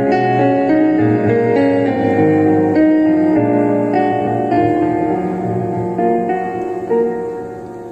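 Kawai digital piano playing an instrumental interlude of sustained chords and melody notes, dying away in the last second.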